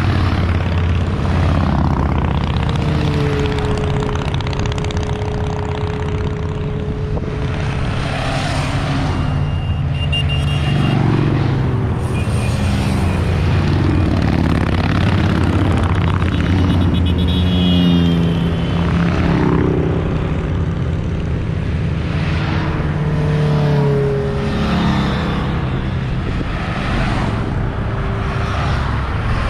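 A procession of motorcycles riding past one after another, their engines running in a continuous overlapping drone, with several engine notes dropping in pitch as bikes pass close by.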